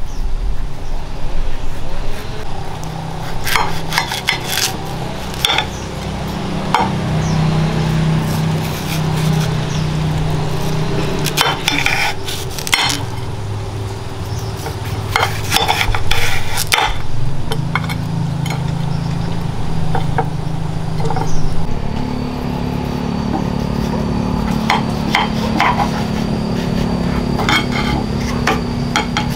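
Scattered sharp clinks and knocks, in small clusters every few seconds, over a steady low hum that shifts in pitch every few seconds.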